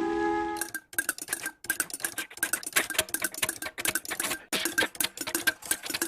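A held musical chord cuts off just under a second in. It is followed by a fast, continuous run of clicking, clattering taps in short bursts: a sound effect from an old cartoon soundtrack.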